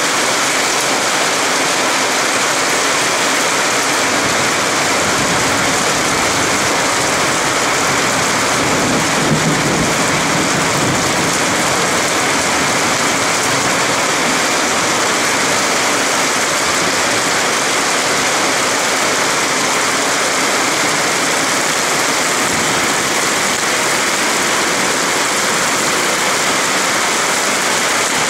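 Torrential downpour of heavy rain, a loud steady hiss of rain pouring onto the ground and hard surfaces. A brief low rumble comes about nine seconds in.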